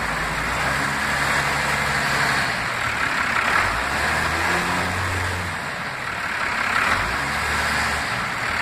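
First-generation Dodge Cummins 5.9-litre inline-six turbo diesel running at raised revs of about 1,500 rpm. Its pitch shifts up and down a little.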